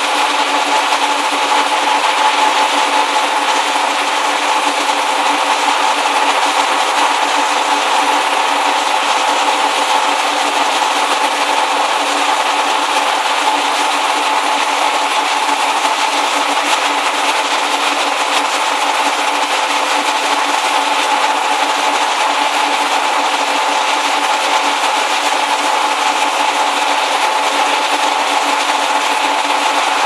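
Microwave and infrared conveyor dryer running while it dries moulded pulp egg trays: a steady machine noise with a constant hum of several steady tones over a broad hiss.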